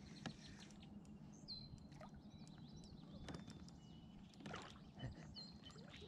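Faint splashing of a hooked smallmouth bass thrashing at the water's surface beside a kayak, with a few short splashes in the second half. High bird chirps are heard in the background.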